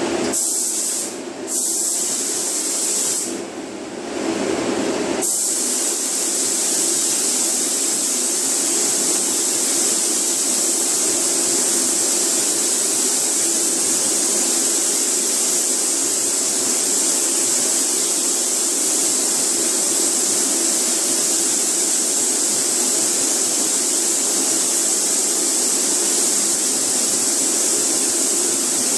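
Automotive paint spray gun spraying clear coat: a steady, loud air-and-paint hiss, cut off briefly about a second in and again for about two seconds, then held unbroken. A steady air rush from the booth ventilation continues underneath.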